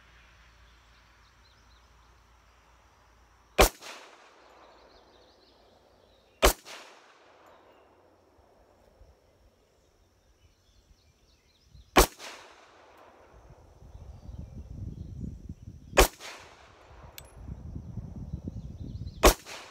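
Five single pistol shots from a Rock Island Armory 1911 in .45 ACP, fired slowly three to five seconds apart. Each shot is a sharp crack with a short echo trailing off.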